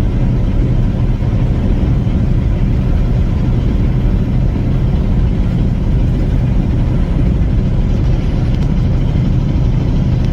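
Steady road and engine rumble heard inside a moving vehicle at highway speed.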